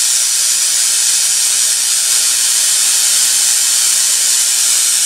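Homemade Tesla coil running a corona motor, its spark gap firing continuously: a loud, steady, high hiss with a faint hum beneath.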